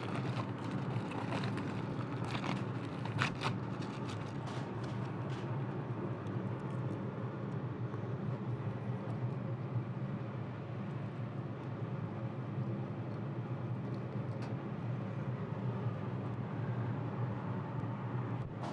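Steady low rushing of a gas griddle's burners running on high, with a few light clicks and taps, mostly in the first few seconds.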